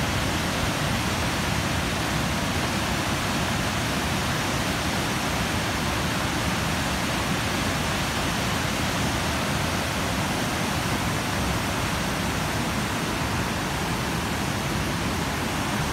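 Water pouring over a concrete dam spillway, a steady even rush with no breaks.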